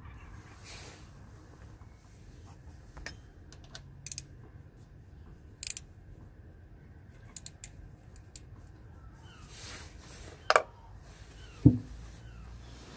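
Irregular metal clicks and taps from a socket wrench with a Torx bit as the coolant bleed screw on a Peugeot 206 engine is seated and tightened. Near the end comes a louder knock with a low thud.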